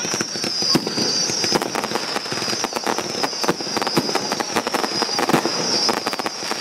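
Fireworks going off in quick succession: a dense run of sharp crackles and pops, with a high, wavering whistle underneath.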